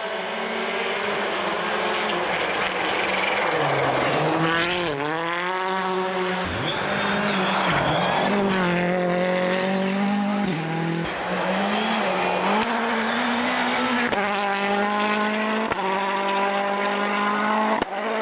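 World Rally Cars' 1.6-litre turbocharged four-cylinder engines at full throttle in a series of passes cut together; the engine note climbs and drops in pitch with gear changes and lifts of the throttle, with a deep dip and climb about four to five seconds in.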